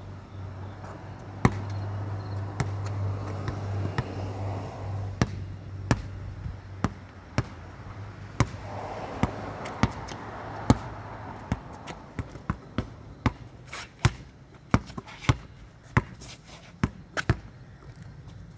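A series of sharp knocks or thuds at irregular intervals, sparse at first and coming quicker in the second half. Under the first half runs a low steady hum that fades out about halfway.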